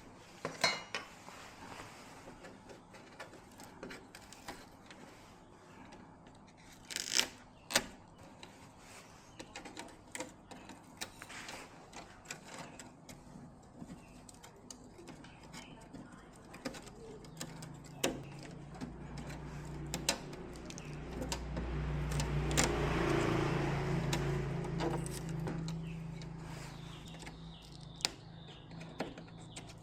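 Scattered light clicks and knocks, like small parts and tools being handled. About seventeen seconds in, a low motor hum rises, peaks, and fades away.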